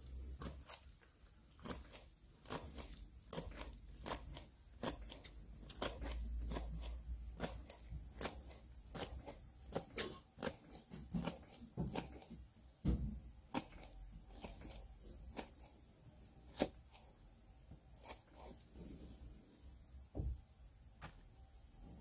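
Swiss Army knife blade (Victorinox Trailmaster) slicing a green onion stalk into rings on a cutting board. There is a series of crisp, irregular cuts, about one or two a second, each ending in a click as the blade meets the board. The cuts come thicker in the middle and thin out near the end.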